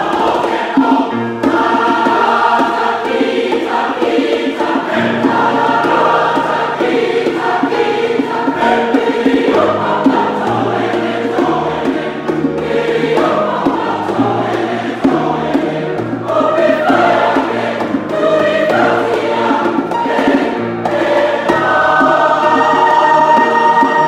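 Choir singing in several-part harmony, low voices under higher ones. It swells to a loud held chord near the end.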